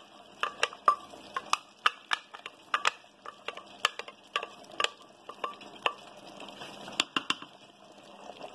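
Wooden spatula knocking and scraping against a grinder jar and the rim of a metal cooking pot as thick ground nut-and-cream paste is scraped into a simmering korma: irregular sharp taps, a few a second, that stop near the end, over a faint simmering hiss.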